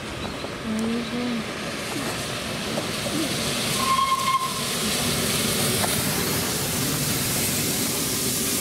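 Peppercorn A1 Pacific 60163 Tornado, a three-cylinder steam locomotive, approaching under power and passing beneath while hauling a train. Its steam and exhaust make a steady hiss that grows louder over the first five seconds and then holds.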